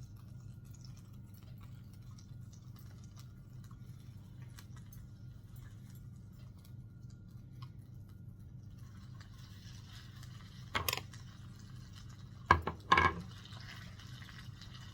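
Utensils knocking and clinking against a baking dish three times near the end, over a steady low hum. This is handling of the cooked stuffed chicken as the toothpicks are pulled out.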